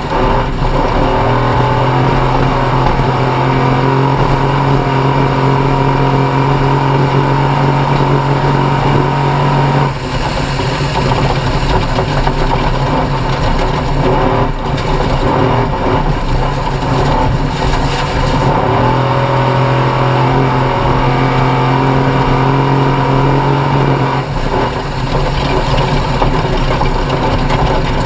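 Off-road race vehicle's engine running hard at racing speed. It holds steady revs for long stretches, with the revs dropping off about ten seconds in and changing for several seconds before settling steady again.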